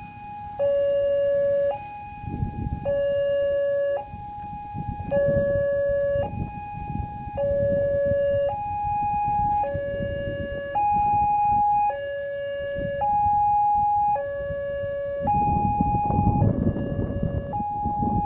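Railway level crossing electronic warning alarm sounding two alternating tones, low then high, each held about a second and repeating steadily: the signal that a train is approaching the crossing.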